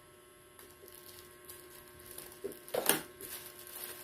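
Faint handling sounds of a speaker part being unwrapped from its packaging, with one louder short rustle or knock about three seconds in, over a steady faint hum.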